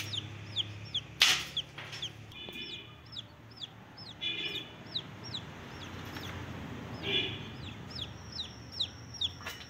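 A chick peeping over and over, short high falling chirps about twice a second, with a few fuller clucks mixed in. A single sharp click comes just over a second in.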